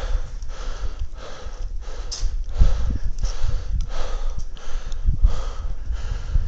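Fast, heavy breathing close to a body-worn microphone, with dull low thumps from the wearer's movement.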